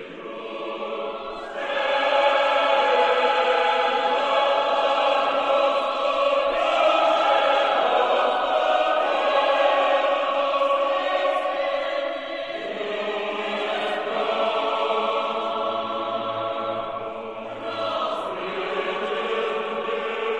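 A choir singing slow, sustained chords, swelling louder about a second and a half in.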